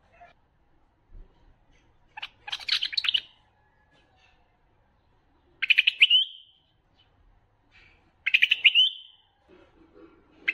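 White-eared bulbul singing: short, bright, warbled phrases about every three seconds, three in all, with faint twittering between them.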